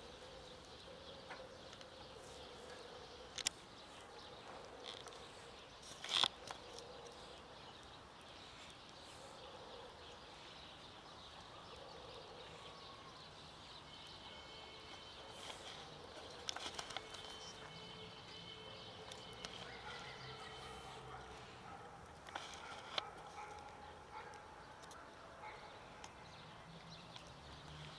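Faint outdoor background with a few sharp clicks or knocks, the loudest about six seconds in.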